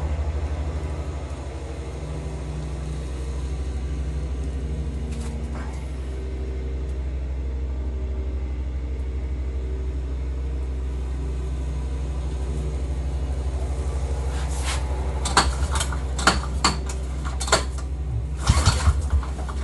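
Small two-stroke snowmobile engine running steadily at idle, a low even hum. Several sharp metal clinks of tools near the end.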